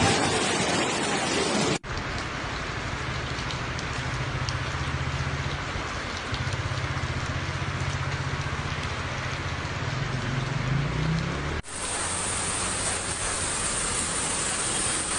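Steady rushing noise of a storm, rain and wind, with a low hum under it through the middle stretch. The sound cuts out sharply twice, about two seconds in and near the end, where recordings are joined.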